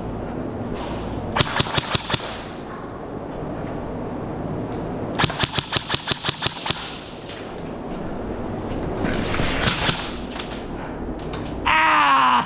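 Airsoft gun firing rapid bursts of sharp shots, about eight a second: a short burst, then a longer one of about a dozen shots, then a few scattered shots. Near the end there is a short, loud sound whose pitch falls.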